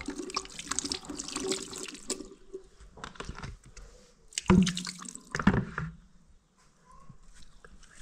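Water poured from a plastic container into a sink basin, splashing steadily for about two seconds. A few sharp knocks and clatter follow, the loudest about four and a half seconds in.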